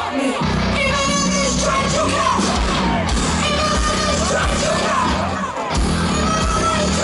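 Live metal band playing loud, with a singer's voice over electric guitars, bass and drums, heard from within the audience.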